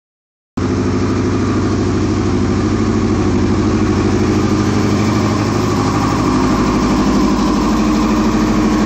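2001 Yamaha YZF-R6 600 cc inline-four motorcycle engine idling with a steady pulsing beat, starting about half a second in; the owner calls it a rough idle.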